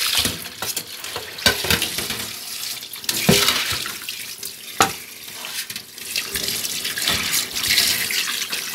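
Tap water running and splashing into a stainless steel kitchen sink as raw chicken pieces are rinsed, with a few sharp knocks of the steel bowl and wire strainer against the sink, the loudest about three and five seconds in.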